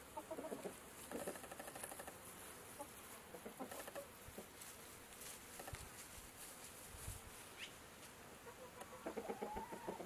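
Chickens clucking faintly in short, scattered calls, with a louder run of clucks starting near the end.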